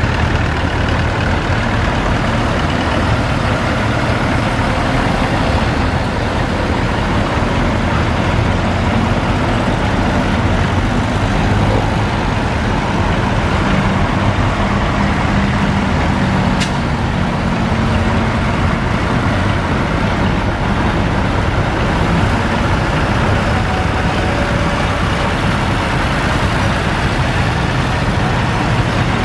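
Diesel tractor engines running steadily as several large tractors, among them a Deutz-Fahr and a Claas, drive past one after another at low speed.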